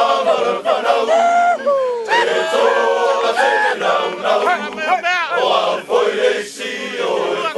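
A group of Samoan soldiers singing and chanting together in loud men's voices, with shouted, wavering calls among them.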